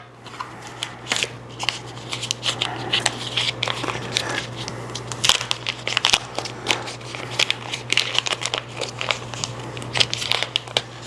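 Packaging crinkling and rustling in dense, irregular crackles as accessories are unwrapped by hand, over a low steady hum.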